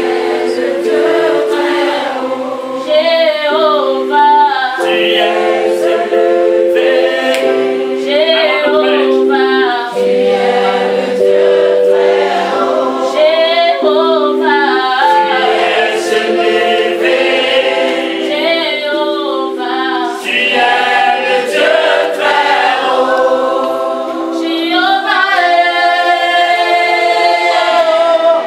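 Church congregation singing a worship song together, a group of voices over steady held notes that change every second or two.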